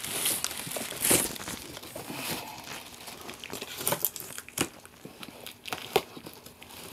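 Loose plastic sheeting crinkling and rustling as a cardboard box is slid over it and handled, with scattered sharp knocks and clicks.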